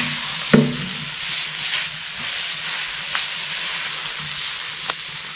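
Chopped meat with onion and tomato frying and sizzling steadily in a steel plow-disc pan over a wood fire. The metal skimmer knocks against the pan a few times as the food is stirred, sharpest about half a second in.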